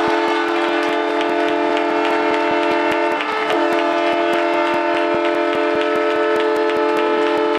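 Arena goal horn sounding a loud, steady chord of several tones, with a brief break about three seconds in, signalling a goal just scored. Scattered sharp clicks run underneath.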